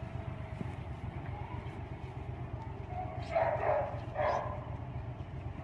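A dog barks twice, short and sharp, about three and four seconds in, during rough play. A steady low rumble runs underneath.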